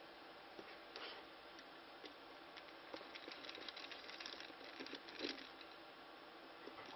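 Faint clicks, taps and scrapes of small plastic and metal parts being handled as an IP camera is taken apart. They are busiest in the middle, with a louder scrape about five seconds in.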